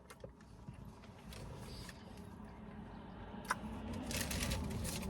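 Faint chewing and mouth noises as a pie with a crispy crust is eaten, with small clicks, one sharper click about three and a half seconds in, and a louder crunching, rustling stretch near the end.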